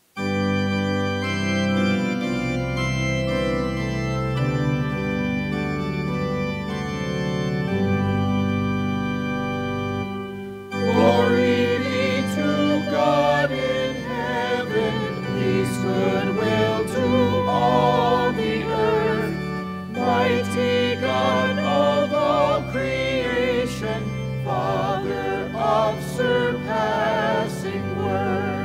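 Organ starts playing suddenly and plays alone for about ten seconds. Then the congregation's voices join in and sing a hymn with the organ.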